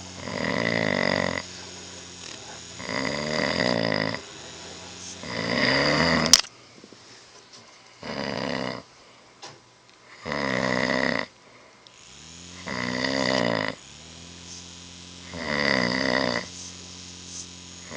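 A person snoring loudly, with a rasping snore about every two and a half seconds, each lasting about a second, and a quieter breath between snores. There is a sharp click about six seconds in.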